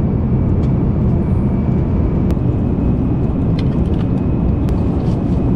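Jet airliner cabin noise: a steady, loud, deep rush of the engines and airflow, with a faint thin whine above it.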